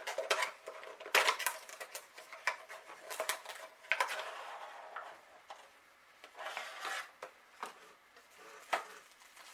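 Plastic packaging crinkling and rustling, with irregular sharp clicks and taps, as a HeroClix booster pack is opened and its figures unwrapped by hand.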